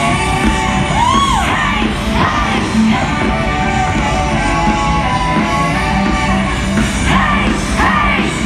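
Loud music playing, with voices yelling and whooping over it about a second in and again near the end.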